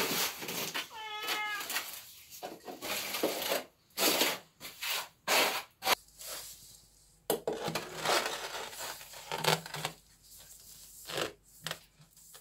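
A tabby cat meows once about a second in, among rustling and a few sharp knocks. After about six seconds come a run of scrapes and taps as a ceramic tile is set into tile adhesive.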